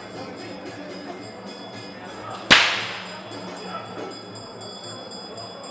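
A single loud, sharp crack about two and a half seconds in, with a short ringing tail, over faint rapid high ticking.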